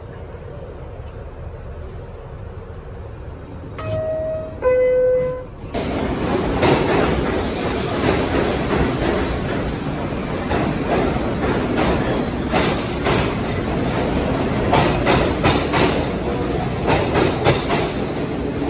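New York City subway 6 train: a two-tone descending door chime sounds about four seconds in, then the train runs loudly with the repeated click-clack of wheels over rail joints.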